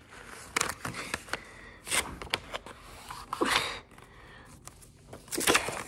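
A sheet of paper rustling and sliding on a hardwood floor as it is lined up and pressed flat to be folded in half, in short scattered bursts.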